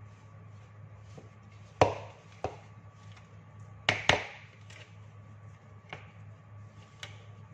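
Sharp knocks of a spatula and a glass mixing bowl against each other and the stone countertop while dough is mixed by hand. There is one loud knock about two seconds in, a quick pair about four seconds in, and lighter taps later, over a steady low hum.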